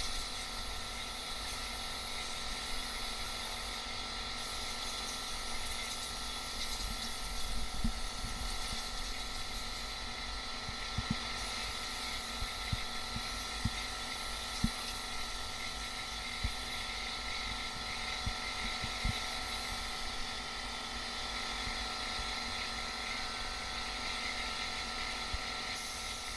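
Compressed air hissing steadily from an air-hose blow gun as it blows dirt and old insulation out of the runners of an aluminum upper intake manifold, with a few light knocks.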